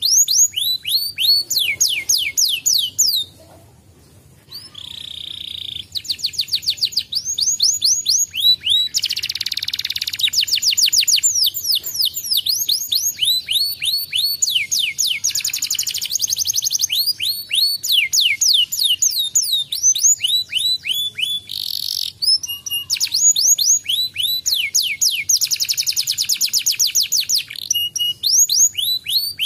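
Domestic canary singing: long, fast trills of rapidly repeated falling notes, broken by a brief pause about three seconds in.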